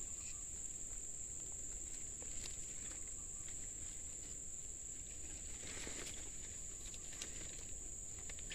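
Steady high-pitched drone of insects, with a soft rustle about six seconds in.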